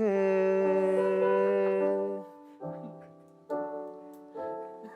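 A male voice singing a slow ballad line, holding one note for about two seconds with piano under it, followed by three soft piano chords, each struck and left to fade.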